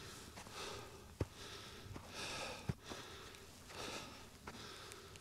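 A person breathing hard and rhythmically while climbing a steep slope, with a breath roughly every one and a half seconds. A few faint footfalls on frozen grass fall between the breaths.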